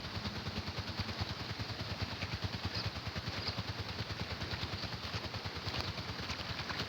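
A small engine running steadily at idle, with a rapid even putter.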